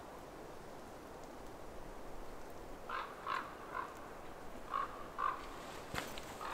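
A crow calling in short series of harsh caws: three about three seconds in, then two more near five seconds. A single sharp click follows just before the end.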